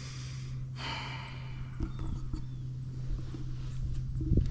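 Wind rumbling on the microphone over a steady low hum, with a brief hissing gust about a second in.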